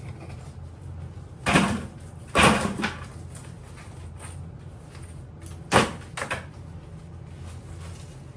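A few separate clunks and clatters, five in all and spaced unevenly, over a steady low hum.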